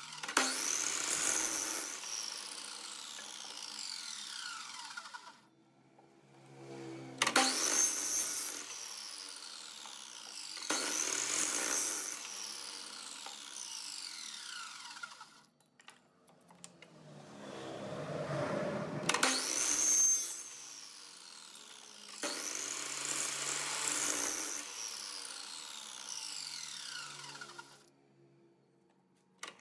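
Electric mitre saw cutting hardwood strips about five times. Each cut starts sharply, and the blade's whine then falls in pitch for a few seconds as it coasts down after the trigger is released.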